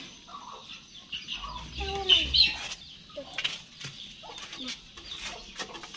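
Chickens clucking, with a louder pitched call about two seconds in.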